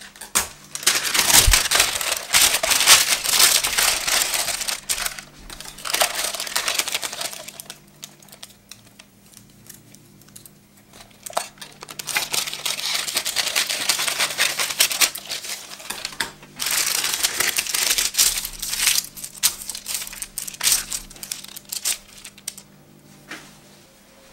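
Baking parchment being unrolled, cut and crinkled as it is laid into a metal baking tray, in several spells of loud rustling. A single low thump comes about a second and a half in.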